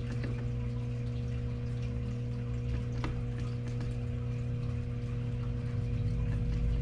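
A steady low electrical-sounding hum, with a few faint soft clicks.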